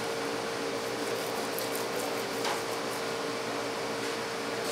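Steady mechanical hum with a constant mid-pitched tone, and a faint click about two and a half seconds in.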